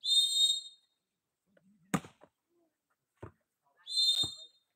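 Volleyball referee's whistle blown twice, two short shrill blasts about four seconds apart, with a couple of sharp knocks, like ball hits, between them.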